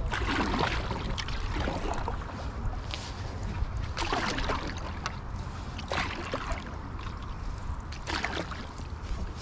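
Wooden Greenland paddle strokes on a stand-up paddle board: the blade dips and pulls through lake water, with a splash every couple of seconds and water dripping and trickling off the blade in between.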